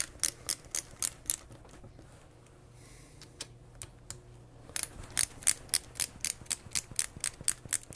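Quarter-inch drive ratchet clicking at about four clicks a second as it turns lifter block screws. The clicking stops for nearly three seconds about two seconds in, then starts again.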